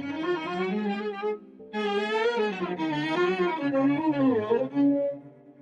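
Background music: bowed strings, violin and cello, playing a wavering melodic line in phrases.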